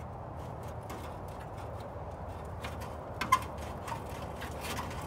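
Light intermittent clicks and taps of hand tools working on the car's sheet metal, with one sharper metallic clink about three seconds in, over a low steady hum.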